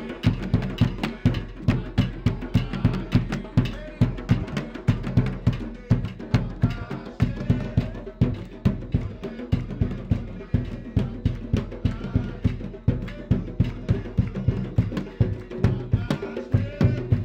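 A group of drums played together in a steady, driving rhythm: a large drum struck with a stick and wooden hand drums beaten with stick and hand. Voices sing over the drumming at times.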